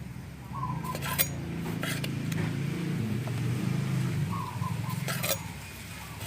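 A few sharp clinks of kitchen utensils against a mortar or dish, over a low steady hum that swells in the middle and fades again.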